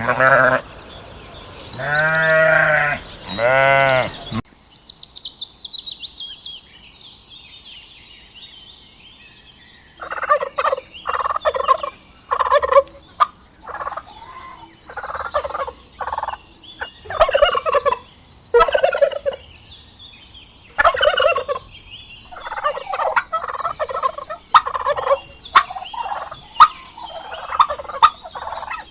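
Poultry calling: a run of short, rattling calls in quick succession over the last two-thirds. It is preceded by a few loud, drawn-out pitched animal calls at the start and a high trill that falls in pitch.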